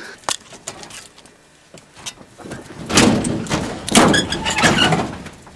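Knocks and thuds of someone climbing a ladder, a few sharp clicks at first, then about three seconds in a louder stretch of scraping and knocking lasting around two seconds.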